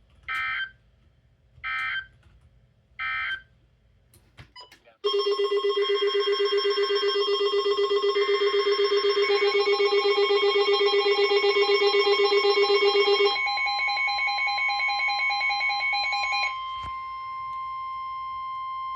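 Emergency Alert System tones: three short bursts of digital data tones, then from about five seconds in a loud, harsh, pulsing many-toned alert sound. The alert sound thins out twice and ends as a single steady alert tone.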